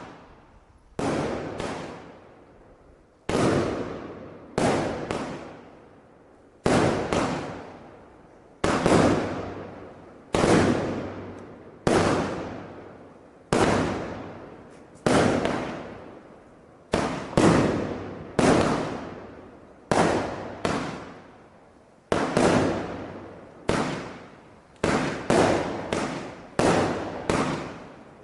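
A 151-shot 'Pyro Spektakel Level 7' fireworks battery firing shell after shell. The sharp bangs come every second or two, often in close pairs, and each one rings out and fades.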